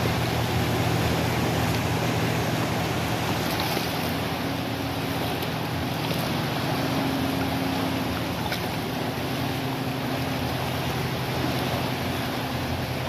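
Fast river water rushing and churning in the outflow below a dam, a steady even rush, with a low steady hum underneath.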